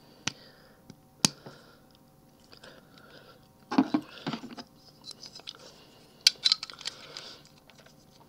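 Small plastic action-figure gun parts being handled and clicked back into place: two sharp clicks within the first second and a half, then busier bursts of clicking and rattling around the middle and again a little later.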